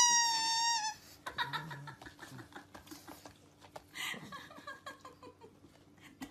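A dog's long, high-pitched whine that falls slightly in pitch and stops about a second in, followed by faint scattered rustling and soft taps.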